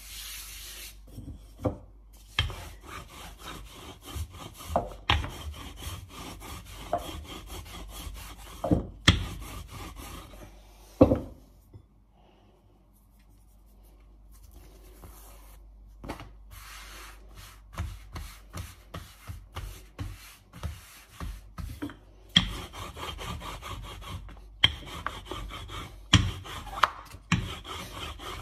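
Hands patting, pressing and rubbing a sheet of pastry dough flat on a floured stone countertop: irregular rubbing strokes with a few sharper knocks, and a quiet lull about twelve seconds in. At the very end a wooden rolling pin starts rolling over the dough.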